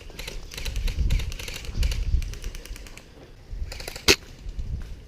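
Airsoft guns firing in rapid clattering bursts, with low rumbling thumps of movement at the mic, then one loud sharp crack about four seconds in.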